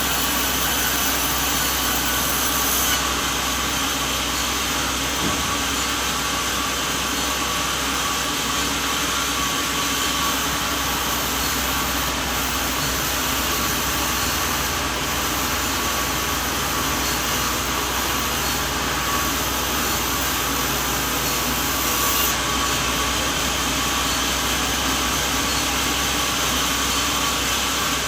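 Sawmill machinery running with a steady mechanical noise; the high end of the sound shifts slightly about three seconds in and again about twenty-two seconds in.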